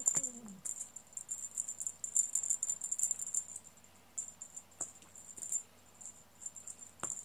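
Metal tag on a cat's collar jingling in irregular little bursts as the cat moves, with a couple of short pauses.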